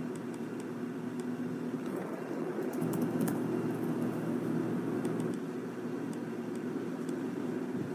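Steady low machine hum, with a few faint clicks in the middle.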